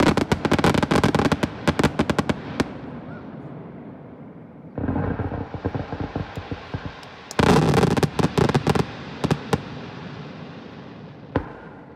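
Aerial firework shells bursting. A thick run of crackling pops fills the first couple of seconds. A burst lands about five seconds in, and a louder cluster of crackling pops follows a couple of seconds later. One last pop comes near the end.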